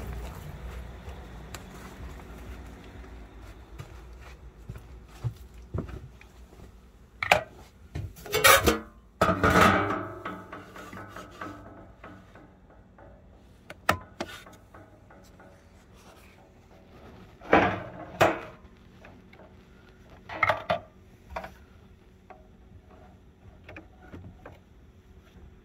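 Handling noise as hands work inside a small locomotive's wooden body: irregular knocks, clatter and rubbing, with the loudest bursts about a third of the way in and again past the middle, as a battery charger lead is plugged into the outlet.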